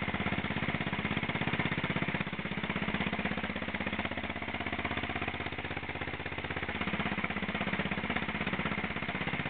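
Old Terrot 350 motorcycle's single-cylinder engine running at low revs under load, pulling slowly up a climb, with evenly spaced firing beats. The pace of the beats shifts a little around two-thirds of the way through.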